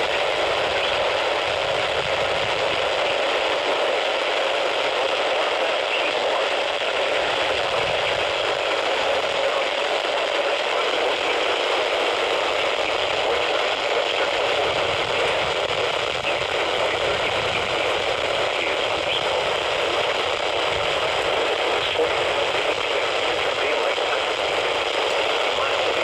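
Steady radio static hiss from a weather radio receiver on a weak signal, thin and narrow like a radio speaker, with no clear words coming through.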